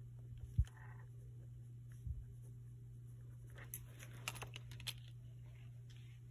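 Faint pen strokes and handling on spiral-notebook paper as writing is finished, with a couple of soft low bumps early on and a short run of light clicks and taps a little past the middle, over a steady low hum.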